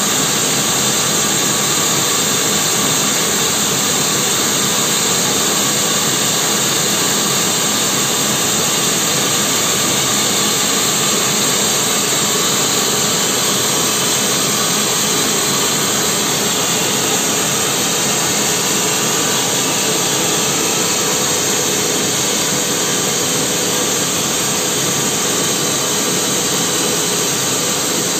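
A vertical band sawmill running and sawing through a mahogany log, with a steady, unbroken saw noise.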